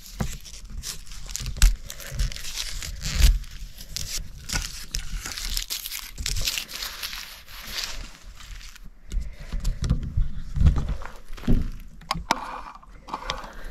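Irregular rustling and crinkling with scattered low thumps and a few sharp clicks, with no steady tone.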